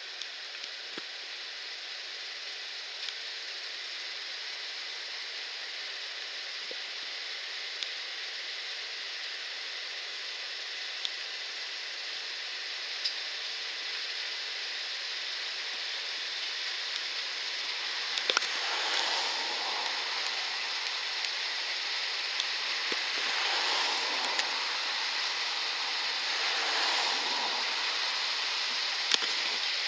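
Claas combine harvester working through barley, heard as a steady hiss that slowly grows louder, with scattered light clicks and a few swelling surges in the last third.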